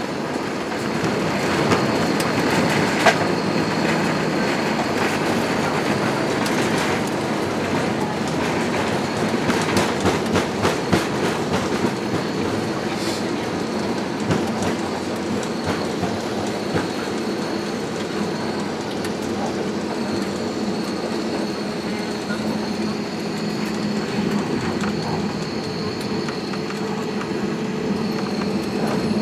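Cabin noise of an Airbus A320neo rolling along the runway after landing: steady engine and airframe rumble with rattling from the landing gear and a faint steady high whine. A short run of knocks comes about ten seconds in.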